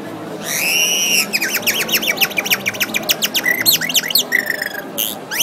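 A person imitating bird calls with the mouth: a long held whistle, then a quick run of falling chirps, then a few short held notes and a rising sweep near the end.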